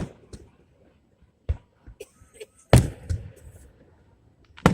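Fireworks shells bursting overhead: a few sharp booms about a second and a half apart, the loudest about two and a half seconds in with a rolling echo, and light crackling between.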